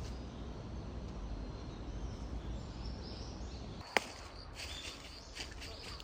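Faint bird chirps over a steady low rumble, then a single sharp click about four seconds in, after which footsteps crunching through dry fallen leaves start again.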